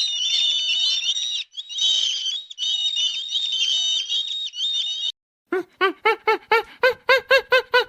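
Many small birds chirping at once in a high, overlapping chorus. It cuts off about five seconds in, and after a brief silence an animal gives a rapid series of short calls, about four a second.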